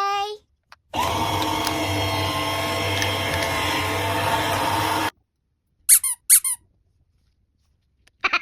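Toy coffee machine sound effect: a steady mechanical whir with a low hum for about four seconds, then cutting off. About a second later come three short, high squeaks in quick succession.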